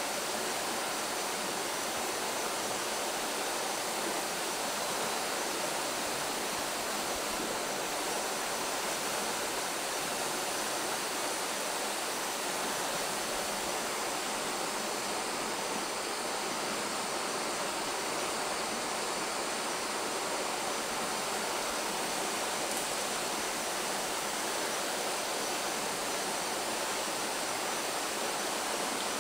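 Steady, even rushing noise with no distinct sounds standing out from it.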